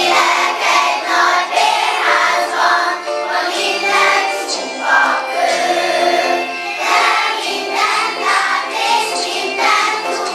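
A primary-school children's choir singing a song together, with a lower line of held notes beneath the voices.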